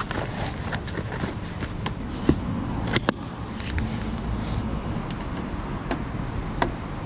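Scattered clicks and knocks of motorcycle luggage being handled: a soft bag pushed into place, a black pannier case's lid and latch, and a phone set into a handlebar mount. The sharpest clicks come about three seconds in and again near the end, over a steady low rumble.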